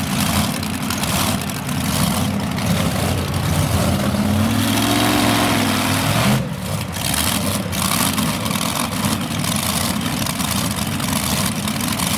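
Multi-engine modified pulling tractor running loudly at the end of its pull. An engine note rises and falls again between about four and six seconds in.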